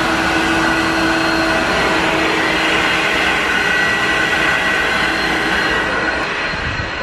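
A steady motor-driven appliance running: a continuous rushing whir with a few fixed tones in it, easing off slightly near the end.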